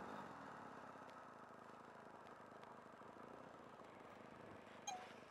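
Near silence: faint steady background noise, with one brief short sound near the end.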